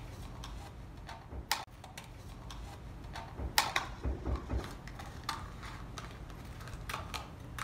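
Scissors snipping through a red plastic disposable Solo cup while cutting a round hole in its base: a series of sharp, separate snips a second or two apart.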